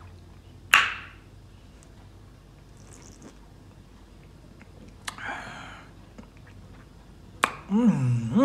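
Mouth sounds of a person drinking from a can and tasting: a short sharp smack about a second in, a breathy exhale about five seconds in, then a hummed 'mm' that rises and falls in pitch near the end.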